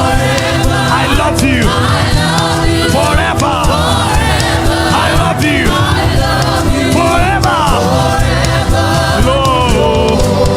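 Live gospel worship music: a group of voices singing over a steady instrumental backing with cymbals.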